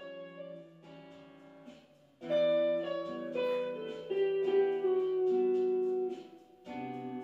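Guitar music: plucked notes and chords ringing out, quiet at first and louder from about two seconds in, with a brief drop shortly before the end.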